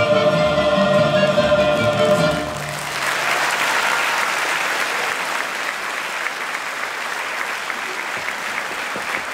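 A mandolin orchestra with mixed choir holds the song's final chord, which cuts off about two seconds in; the audience then breaks into steady applause.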